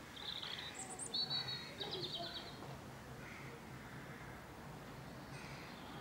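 Small songbirds singing: a few short high chirps, then a trilled phrase lasting about a second and a half, all in the first few seconds, over a faint low background hum.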